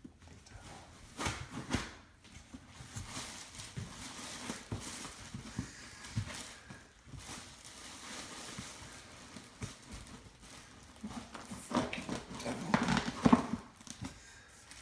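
Handling noise from unpacking a heavy resin statue: rustling packaging and irregular knocks and bumps, busiest and loudest near the end.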